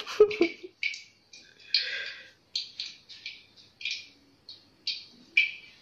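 Hot cooking oil in a wok crackling and spitting: short sharp pops at irregular spacing, about three a second.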